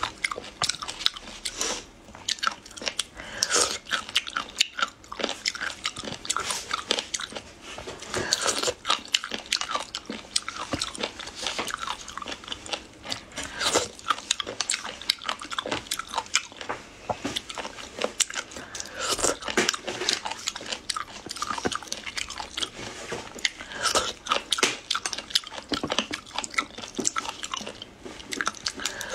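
Close-miked chewing of small raw shellfish, a dense run of quick crunchy clicks and mouth sounds that goes on without a break.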